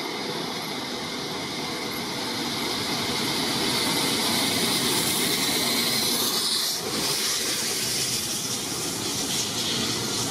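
Steam locomotive 60163 Tornado, a three-cylinder A1 Pacific, passing at speed with its train: a steady rush of steam and running noise that grows louder as it nears. It is followed by the Pullman coaches rolling by.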